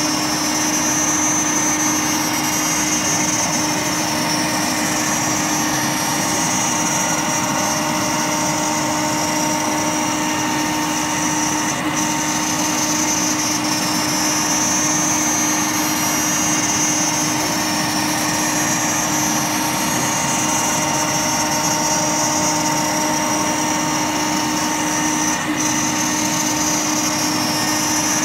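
CNC router spindle cutting a clear acrylic sheet while the dust extraction vacuum draws through the brush dust shoe. The two run together as a steady hum with a high whine, and two brief ticks come near the middle and near the end.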